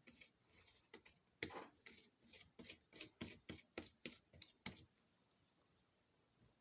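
Knife spreading butter: a run of faint short scrapes and taps, about three a second, stopping a little under five seconds in.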